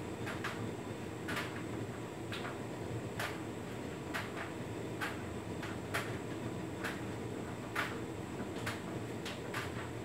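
Hotpoint Ultima S-Line tumble dryer running a standard cottons cycle: a steady hum from the motor and drum, with light clicks and taps about once a second as the load tumbles in the drum.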